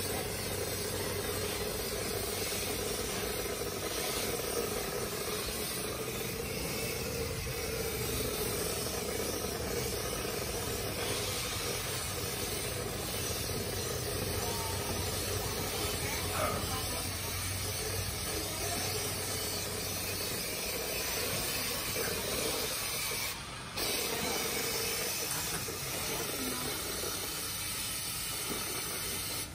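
Handheld electrostatic powder-coating gun blowing a steady hiss of air and powder, over a low steady hum; the hiss dips briefly about three-quarters of the way through.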